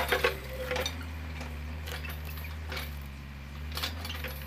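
Mini excavator's engine running steadily, with a series of sharp metallic clinks and knocks from the bucket and arm linkage as the machine works.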